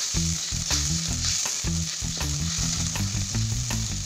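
Water bubbling and sizzling in a hot aluminium wok of sautéed shallot, garlic and chilli, with the clicks and scrapes of a spatula stirring against the pan.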